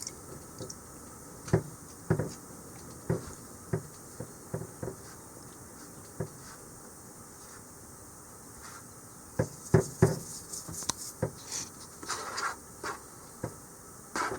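Chicken drumsticks being pressed and patted into flour by hand: scattered soft pats and thumps, busier in the second half, with a little rustling of the flour.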